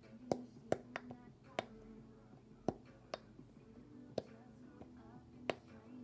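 Silicone push-pop fidget ball, its bubbles pressed in one by one, each giving a sharp pop: about eight pops at uneven intervals. Faint background music underneath.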